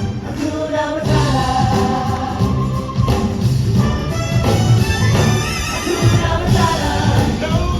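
Loud show soundtrack over outdoor speakers: a choir singing over a steady drum beat.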